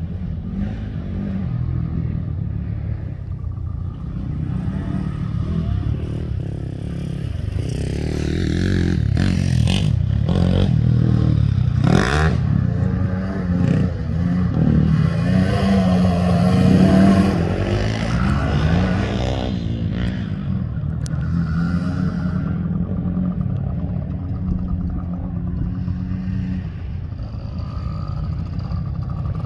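Small off-road engines running: a youth ATV engine drones steadily, revving up and down as it comes close through the middle, with a few sharp knocks about ten to twelve seconds in. A small dirt bike's engine is running near the end.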